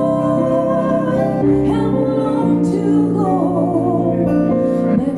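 Live duo music: an acoustic guitar and a Yamaha electronic keyboard play sustained chords, and partway through a wavering sung line joins them.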